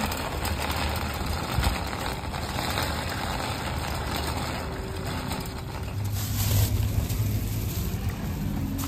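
Wire shopping cart rolling and rattling over rough asphalt, with a vehicle engine running low underneath that swells for a moment late on.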